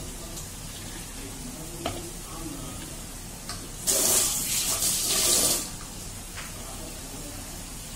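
A tap runs into a steel sink for just under two seconds, about four seconds in, with water splashing on metal. There is a single sharp knock about two seconds in.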